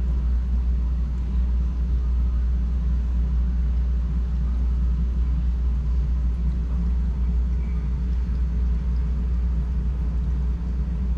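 Steady low hum and rumble of a large aquarium's running equipment, its pumps and bubbling air lines, unchanging throughout.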